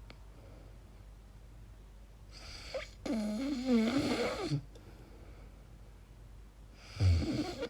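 A sleeping woman's snoring-type noises: about three seconds in, a long breathy sound with a wavering, bending pitch lasting about a second and a half, then a shorter, lower one near the end.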